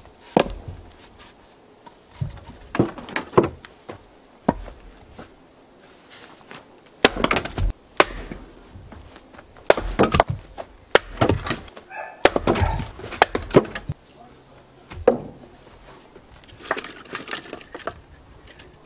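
Axe splitting firewood on a wooden chopping block into kindling: a dozen or so sharp chops and cracks of splitting wood, a second or two apart and sometimes in quick pairs, with split pieces clattering down between strikes.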